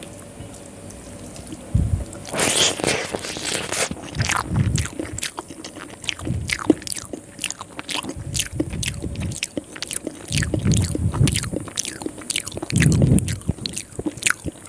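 Close-miked eating of soft rice noodles soaked in sweet coconut milk: wet chewing with many quick lip smacks and mouth clicks, and a louder, noisier stretch of mouth sound about two seconds in.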